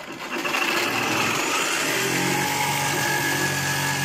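A motor or engine running steadily, with a steady hum joining in about two seconds in.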